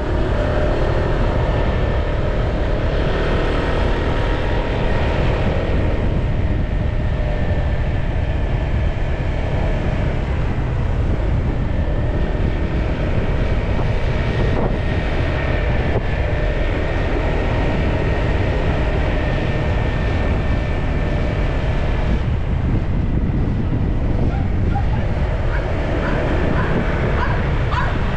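Honda PCX 150 scooter's single-cylinder engine running at cruising speed under heavy wind rumble on the helmet-camera microphone. It stays steady throughout.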